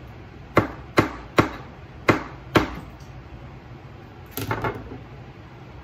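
Kitchen knife chopping vegetables on a cutting board: five separate sharp chops in the first few seconds, then a brief cluster of lighter knocks about four and a half seconds in.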